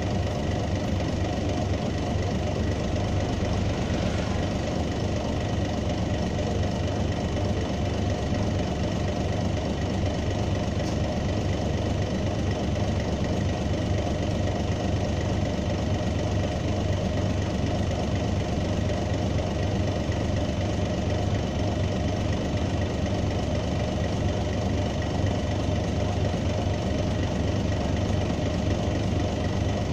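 Mercedes-Benz OM407 straight-six diesel of a 1985 Mercedes-Benz O305 city bus running steadily, heard from inside the bus, with a deep hum and no change in pitch.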